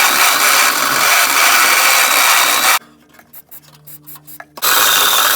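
A power tool grinding into the steel frame, reaming out the start of a bolt hole. It runs in two long harsh bursts: the first stops about three seconds in, and the second starts again near the end, with light clicks in the short gap between.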